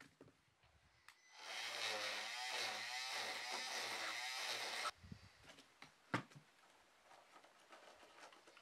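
Oscillating multi-tool running as its blade cuts into a hemp block wall. It starts a little over a second in, runs steadily for about three and a half seconds, then stops abruptly. A single sharp knock follows a second later.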